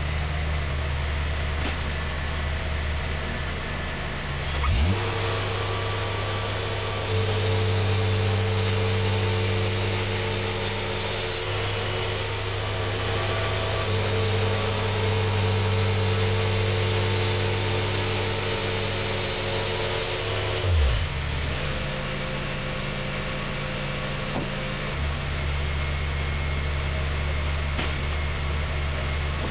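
Wood-Mizer LT40 portable band sawmill's engine idling, then throttling up about five seconds in and running at speed for some fifteen seconds while the band blade saws through a log. It then drops back to idle.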